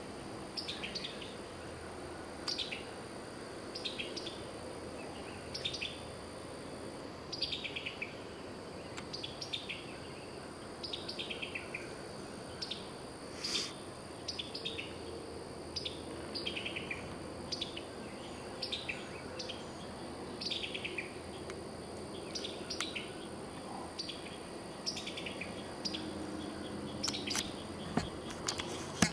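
Songbirds singing, short phrases falling in pitch repeated about once a second, over a steady high drone of insects. A few sharp clicks near the end.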